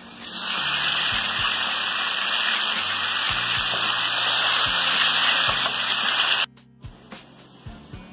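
A loud, steady rushing hiss, like running or gushing water, over low background music. It cuts off suddenly about six and a half seconds in, and the music carries on.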